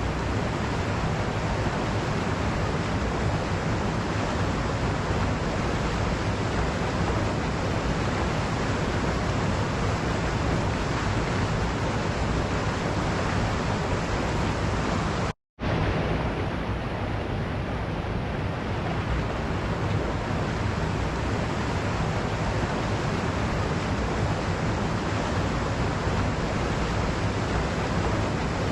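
Waterfall rushing in a steady, full roar of falling water. It cuts out completely for a split second about halfway through, then carries on as before.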